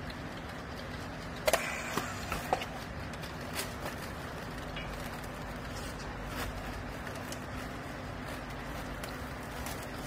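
Steady machine hum from a vertical hydraulic textile baler, with a handful of sharp clicks and clacks about one and a half to two and a half seconds in, as plastic strap is handled around the pressed bale.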